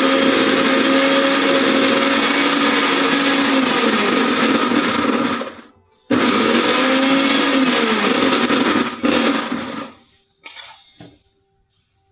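Electric mixer grinder running in two bursts, grinding chutney. It runs for about five seconds, stops briefly, then runs again for about four seconds. Its pitch drops near the end of each run before the motor cuts off and spins down.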